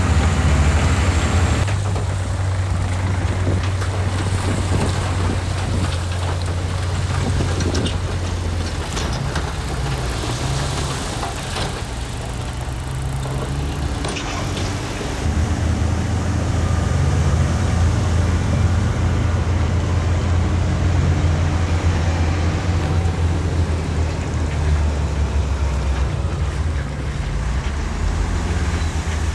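Diesel engine of heavy earthmoving equipment running under load, a steady low hum that eases off about halfway through and picks up again, with a few scattered knocks in the middle.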